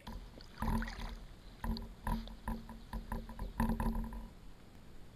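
Advanced Elements AdvancedFrame inflatable kayak knocking and bumping as it is paddled: about six thuds over four seconds, with a low hum ringing through the louder ones, settling after about four seconds.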